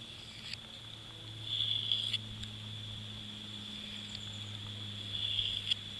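Two short rasping strokes of a Swiss Army knife blade drawn along mud-coated paracord to strop it, about a second and a half and five seconds in, each ending in a sharp click. Behind them, insects trill steadily over a low hum.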